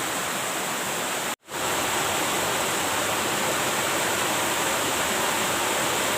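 Steady rush of flowing river water, cut off for a moment about a second and a half in.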